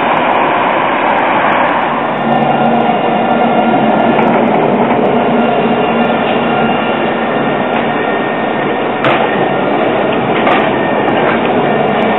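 Alstom Citadis tram passing close by on street track, with a steady hum and several whining tones from its motors and wheels on the rails. It gets a little louder about two seconds in. Two sharp knocks about a second and a half apart come in the second half.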